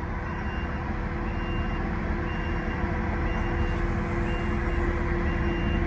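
A farm lifting machine's engine running steadily while its reversing alarm beeps about once a second.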